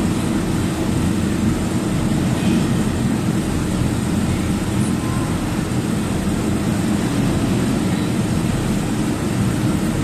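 Truck engine and tyre noise heard inside the cab while driving along a highway: a steady low drone with no breaks.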